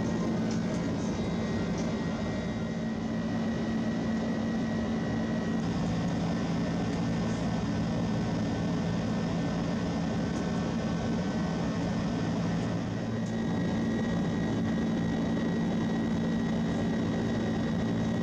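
Steady cabin noise inside an Airbus A330-300 airliner: an even low hum with a faint high whine running over it.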